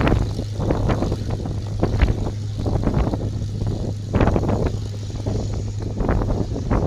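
Hawker Hurricane's Rolls-Royce Merlin V12 aero engine running after startup, a steady low drone with irregular buffeting over it.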